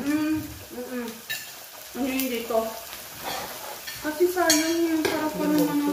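Pork belly slices sizzling on an electric grill plate, with a few sharp clicks of metal tongs against the plate.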